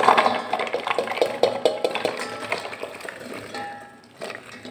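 Chopped raw vegetable pieces tumbling and knocking into a stainless steel pot as they are tipped in from a bowl and pushed along by hand. A dense clatter at first that thins to a few scattered knocks after about three seconds.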